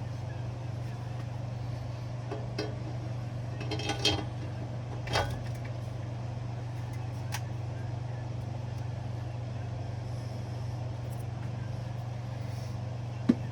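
A steady low hum runs throughout, with a handful of short metallic clicks and knocks from tools and parts being handled as the exhaust header is assembled onto the turbo.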